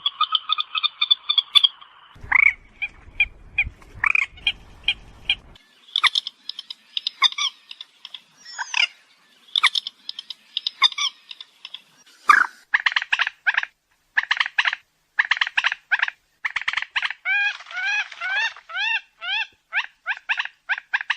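Common moorhen (mandar batu) calls from a bird-lure recording: short croaking and clucking notes, scattered at first, then fast repeated series with a run of arched chirps past the middle. A low rumble sits under the calls early on.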